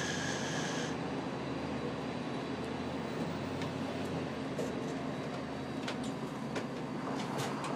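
Steady rumble of city street noise with a high squeal that cuts off about a second in, followed by a few sharp clicks and knocks near the end.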